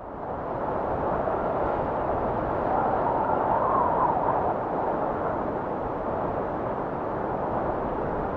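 Steady rushing noise with no clear pitch, fading in over the first second and swelling slightly around the middle.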